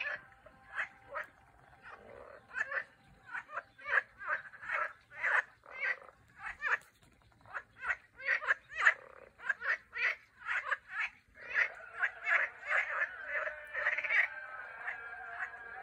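A chorus of frogs calling from a duckweed-covered pond: many short croaks in quick, irregular succession, often several a second. Near the end the calls run together into a steadier overlapping chorus.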